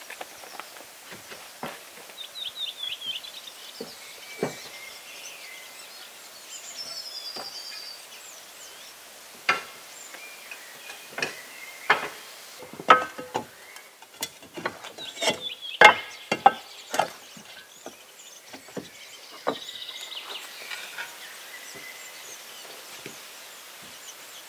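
Irregular knocks and taps of manual building work on wood. They cluster in the middle and peak about two-thirds through. Birds chirp in between, with a quick run of chirps a couple of seconds in.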